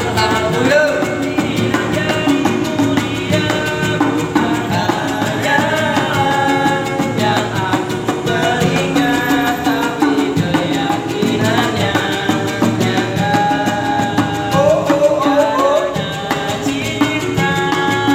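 Live street buskers performing a Malay pop ballad: a singer's voice carrying the melody over steady instrumental backing.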